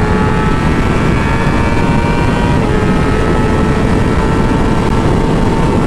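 Yamaha R6 inline-four engine running hard at high revs, its pitch slowly climbing, under heavy wind rush; a brief dip in the engine note about two and a half seconds in.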